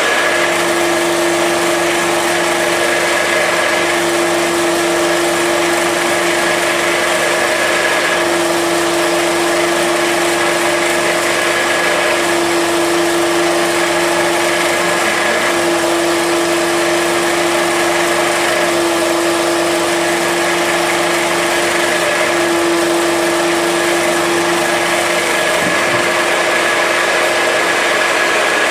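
Small electric flat-die pellet mill running under load as feed is poured into its hopper: a steady motor-and-die hum, with a tone that swells and eases every few seconds.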